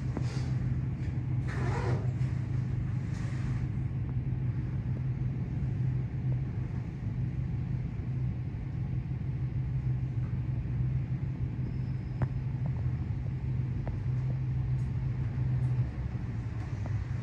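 Express passenger elevator car running as it climbs: a steady low hum and rumble, which drops off near the end.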